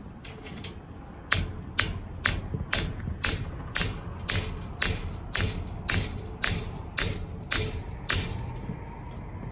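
Hammer striking a trolley-wire ear over and over to drive it along the overhead copper trolley wire into position. A couple of light taps come first, then a steady run of about fourteen sharp, ringing metal blows, roughly two a second, which then stop.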